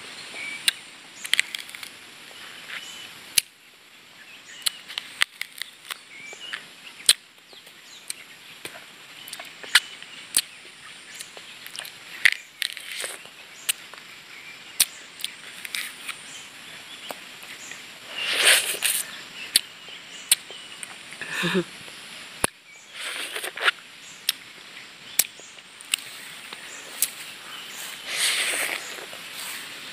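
Close-up mouth sounds of someone eating a passion fruit from its rind: irregular wet clicks and smacks as the seedy pulp is sucked and chewed, with a few longer sucking noises near the middle and near the end.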